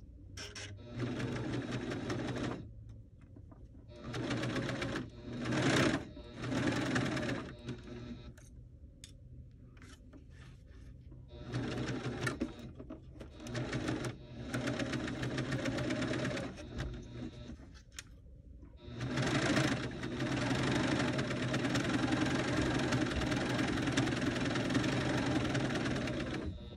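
Husqvarna Viking Huskylock serger sewing a two-needle cover stitch hem on heavy stretch knit, running in short stop-start spurts of one to three seconds, then one steady run of about seven seconds near the end.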